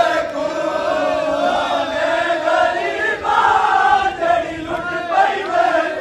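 Crowd of men's voices chanting a noha, a Shia lament for Imam Hussain, in unison.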